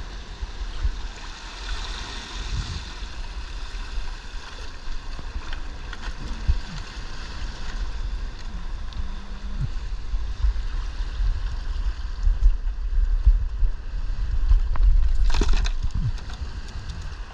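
Shallow seawater sloshing and washing over lava rocks at the shoreline, under a heavy low rumble, with a brief louder rush about fifteen seconds in.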